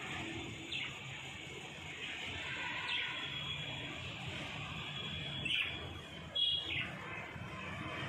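A pair of budgerigars chattering continuously, broken by several short sharp chirps, the loudest two a little past the middle.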